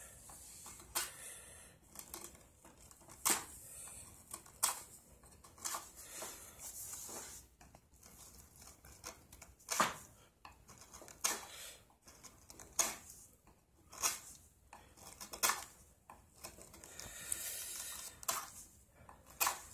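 Flat steel wood chisel scraping and paring clay and resin off a round wooden stick by hand, in short sharp strokes about every second and a half, with one longer scrape near the end.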